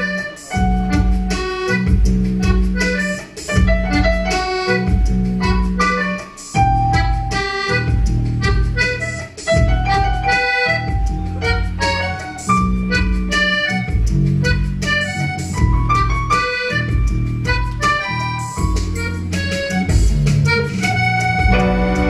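A small live ensemble playing an instrumental piece: electric bass guitar keeping a rhythmic bass line under piano accordion and keyboard.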